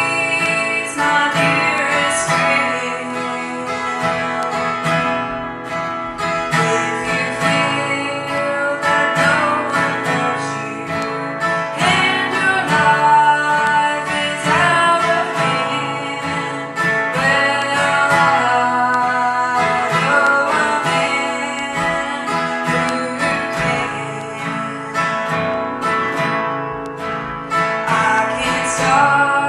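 A song: strummed acoustic guitar with a singing voice.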